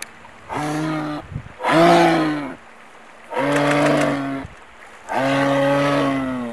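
Moose calling: four drawn-out calls of steady low pitch, each about a second long, the second one the loudest.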